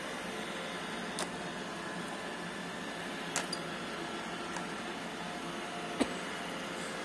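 iRobot Roomba e5 robot vacuum running with a steady whir from its motor and brushes, and a few sharp clicks or knocks, the loudest about six seconds in.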